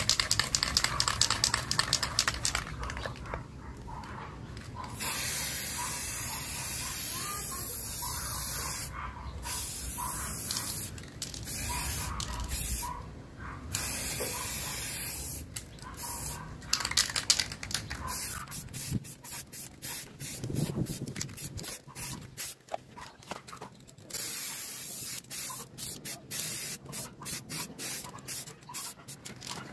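Aerosol spray can of primer being sprayed onto a motorcycle spoke rim: the can's mixing ball rattling as it is shaken, then long hissing passes with short pauses, giving way to many short spurts in the second half.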